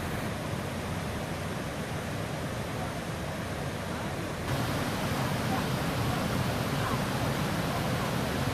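Water rushing and splashing over shallow waterfall cascades in a steady rush that gets louder about halfway through.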